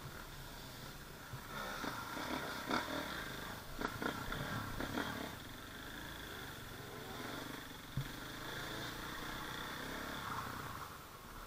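KTM dirt bike running at low revs, its engine muffled, with knocks and rattles as it rolls over rocks on the trail; a cluster of knocks comes a couple of seconds in and one sharp knock about eight seconds in.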